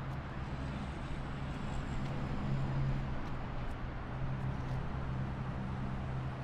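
Low, steady engine drone of the ro-ro cargo ship Seatruck Precision, over a faint hiss of outdoor background noise.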